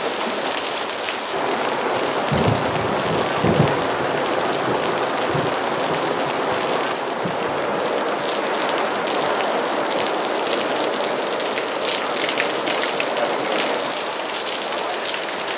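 Heavy rain falling steadily on a wet street, an even hiss of drops and splashes, with a few low thuds between about two and four seconds in.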